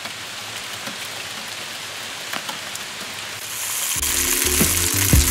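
Steady rain falling, with a few separate drops ticking. About four seconds in, background music with a beat fades in over it.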